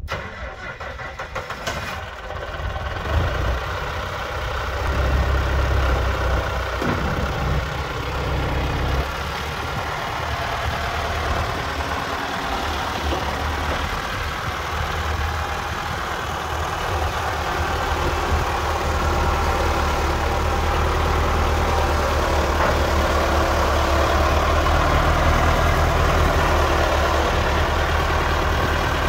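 Engine of a 1972 International 574 loader tractor running as it drives and works its loader, growing louder a few seconds in.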